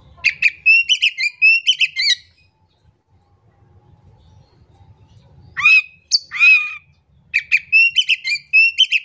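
Caged male Oriental magpie-robin in full song. A quick run of varied, high chattering notes, a pause, then two loud slurred whistles, then another quick run of notes near the end.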